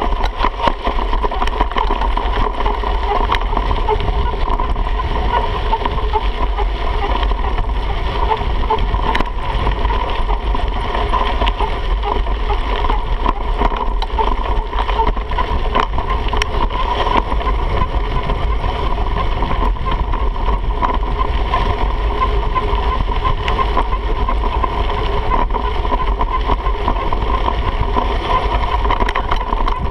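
Mountain bike rolling fast downhill on a dirt and gravel trail: a steady rumble of tyres on dirt and wind on the microphone, with many small knocks and rattles as the bike goes over rough ground.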